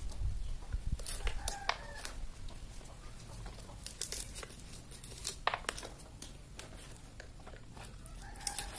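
Hand-cranked areca nut peeler stripping the dry husks off areca nuts: irregular cracking, tearing and clicking as the husk is torn away. Two short squawk-like tones, about a second in and near the end.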